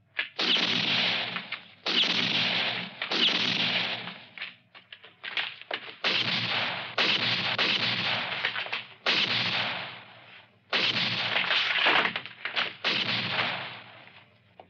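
Revolver gunshots from a western film's sound-effects track: about ten loud shots spread over the stretch, each a sharp crack with an echoing tail of about a second.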